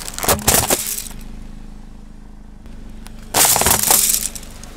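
A bundle of wooden coloured pencils cracking and splintering under a slowly rolling car tyre: a dense burst of snaps about three and a half seconds in, after a shorter run of cracks at the start. The car's engine idles with a low steady hum underneath.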